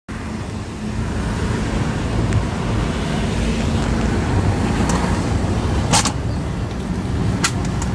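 Car cabin road noise while driving on a wet highway: a steady low rumble of engine and tyres, with a few sharp clicks in the second half.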